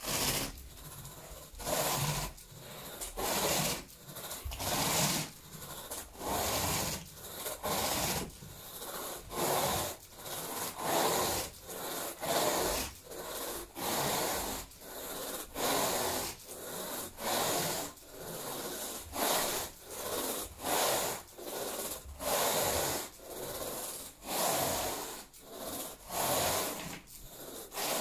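A carpet rake's plastic head dragged through cut-pile carpet in repeated scraping strokes, about one a second.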